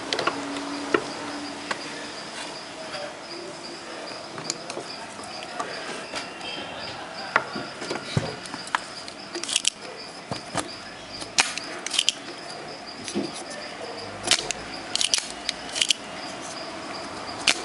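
Scattered light clicks and taps from work on an amplifier circuit board, over an insect's steady high pulsing chirp.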